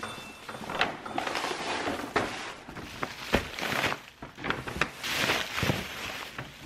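Thin plastic grocery carrier bags rustling and crinkling as they are handled and opened, with irregular crackles and a few sharper snaps.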